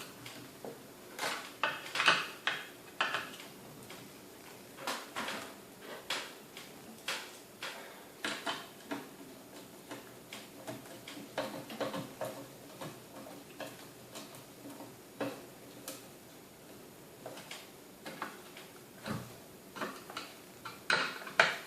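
Irregular clicks, taps and light clatter of small plastic and metal parts being handled and fitted together while the car audio amplifier box and its brackets are reassembled by hand.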